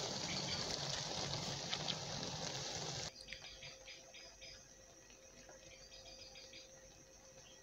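Steady sizzling hiss from a pot of egg masala simmering on low heat as boiled rice is poured onto it; it cuts off suddenly about three seconds in. After that it is much quieter, with faint light clicks of a metal spoon spreading the rice in the pot.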